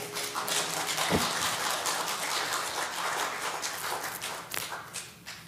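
Small in-person congregation applauding in a sanctuary, dense clapping that tapers off near the end.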